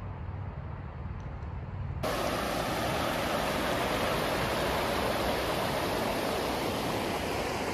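Shallow mountain stream rushing over rocks in a steady, even hiss that starts abruptly about two seconds in. Before that there is only a low rumble.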